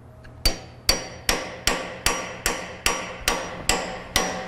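Hammer blows on a steel pry tool driven into a seam of a robot arm's metal housing to split it apart: about ten sharp metallic strikes at a steady pace of about two and a half a second, each with a short ring, starting about half a second in.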